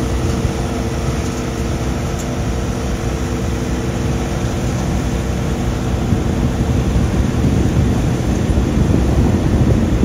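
Peanut harvester machinery running steadily in the field: a loud, even mechanical drone with a constant hum, growing a little louder in the last few seconds.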